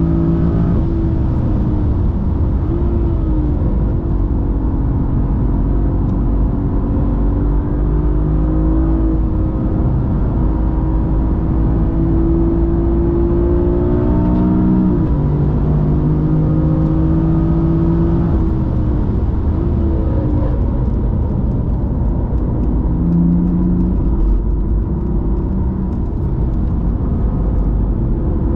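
BMW M4 (F82) twin-turbo straight-six engine under hard driving on a race track, its note climbing and dropping again and again with throttle, braking and gear changes. Steady road and tyre noise runs underneath.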